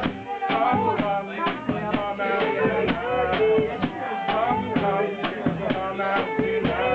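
A live funk band playing, with an upright double bass and a drum kit keeping a steady beat.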